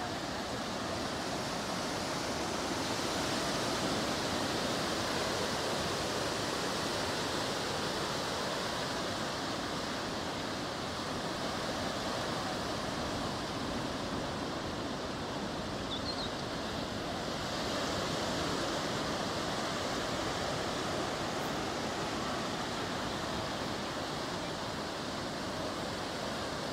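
Ocean surf: a steady wash of breaking waves, swelling a few seconds in and again about two-thirds of the way through.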